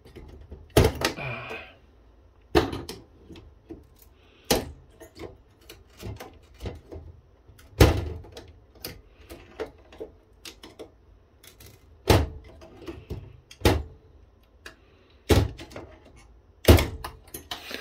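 Small chip heatsinks being pried and snapped off a circuit board with a screwdriver: irregular sharp clicks and snaps, a loud one every second or two, with lighter ticks and scrapes between.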